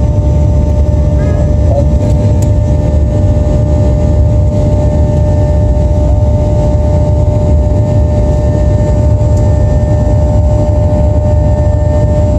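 Jet airliner's engines heard inside the passenger cabin: a loud, steady low roar with a constant whine over it.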